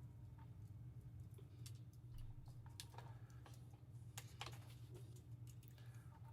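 Scattered light clicks and taps of hand tools against the mount's metal parts while working at a stuck screw, over a low steady hum.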